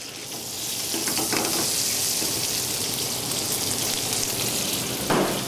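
Shallots sizzling in hot olive oil and butter in a frying pan: a steady hiss that builds over the first second after they go in, then holds.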